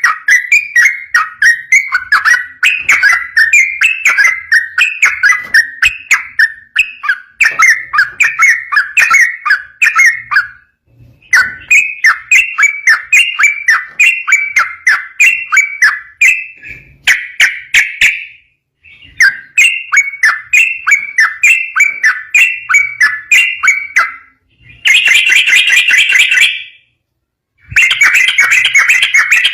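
Yellow-vented bulbul (trucukan) singing a loud, fast, continuous song of short chattering notes, several a second, in long phrases broken by a few brief pauses. Near the end the notes come denser and a little higher.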